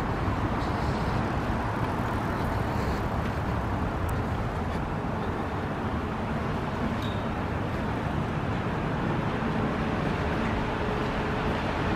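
Steady low rumble of city road traffic, an even background noise with no distinct events.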